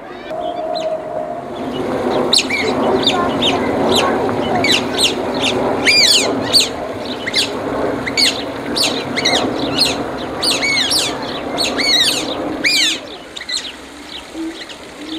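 Birds chirping rapidly, several short arched calls a second, over a steady background murmur; the chirping starts about two seconds in and stops near the end.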